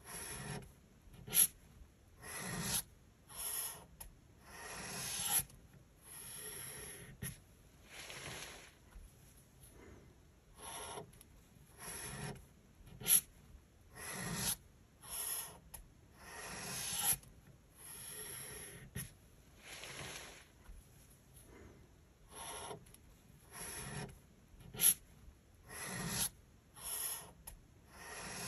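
Brush-pen tip scratching across paper in a long series of separate strokes, each about a second long with short pauses between. A few sharp ticks stand out.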